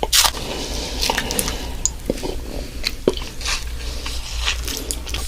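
Close-miked ASMR sounds: irregular wet, squishy clicks and crackles over a steady low hum.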